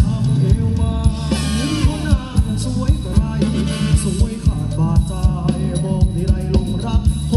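Loud Thai ramwong dance music from a live band over PA speakers: a steady drum beat under a bending melody line.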